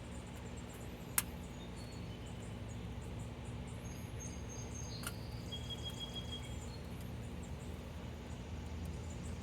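Outdoor ambience: a steady low rumble of light breeze with birds chirping faintly, and one sharp click about a second in.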